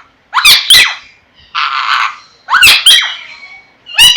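Pet parrot squawking: a few short, sharp calls with steeply swooping pitch and a harsh rasping screech about two seconds in.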